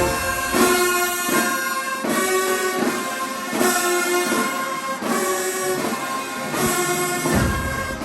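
Marching band brass section playing loud held chords in short repeated blasts, about one a second. The low bass and drums are absent until near the end, when they come back in.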